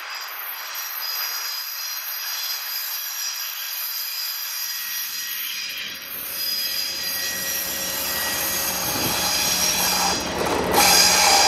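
An approaching train led by a TEP70S diesel locomotive. Several high, steady ringing tones come from the wheels on the rails. From about halfway the low hum of the diesel engine comes in beneath them, and the whole grows steadily louder, stepping up sharply near the end.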